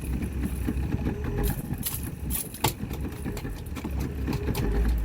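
Fishing boat's engine running steadily at low speed, with a few light clicks and one sharp knock about two and a half seconds in.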